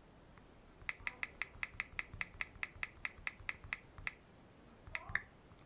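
Quick run of keypress clicks from a tablet's on-screen keyboard as text is typed, about five or six a second for some three seconds, then a couple more taps near the end.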